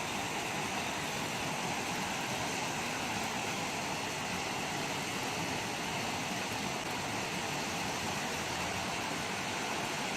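Steady, unchanging engine noise from a running vehicle, with no distinct knocks or events.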